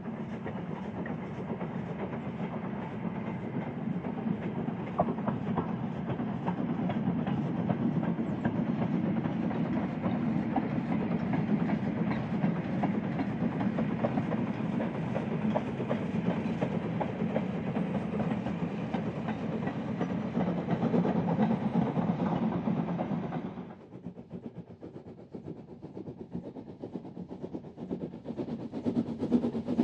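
Steam-hauled train running on the track, a steady noise with many small clicks from the wheels and rail joints. About 23 seconds in it drops off suddenly to a quieter sound, which builds again near the end.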